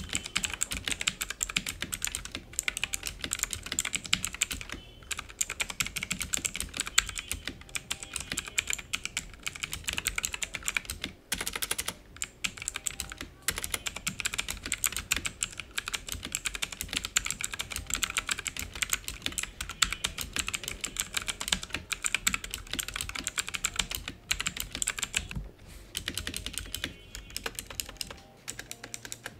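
Fast continuous typing on a budget mechanical keyboard with Chinese clicky blue switches, a dense run of sharp key clicks broken by a few short pauses.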